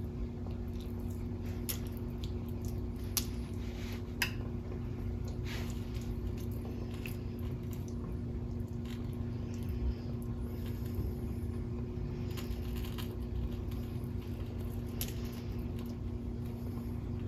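Hands pulling tender pressure-canned chicken drumstick meat off the bone: soft squishy tearing with scattered small clicks, over a steady low hum.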